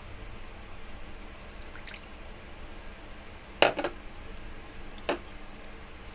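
Soy sauce pouring from a bottle into a ceramic bowl as a thin trickle with a few drips. A sharp knock about three and a half seconds in, the loudest sound, and a smaller knock about five seconds in.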